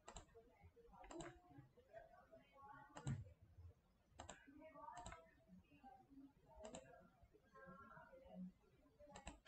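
Quiet computer mouse clicks, a handful at irregular intervals, the loudest about three seconds in.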